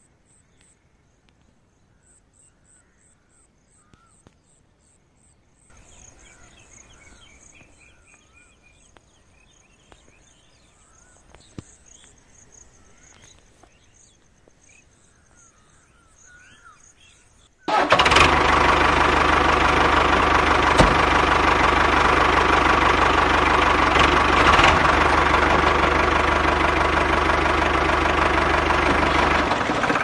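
Faint bird chirps and high insect-like trilling, then about two-thirds of the way in a loud, steady engine-like motor sound with a low hum starts suddenly and runs until it cuts off sharply at the end.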